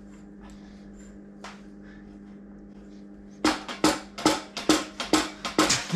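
A drumbeat starts about halfway in, with loud, evenly spaced hits two to three a second, over a low steady hum.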